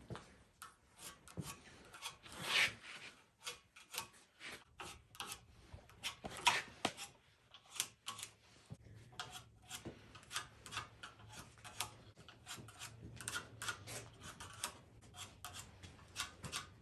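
Metal parts being handled: irregular light clicks, taps and scraping, with a faint low hum in the second half.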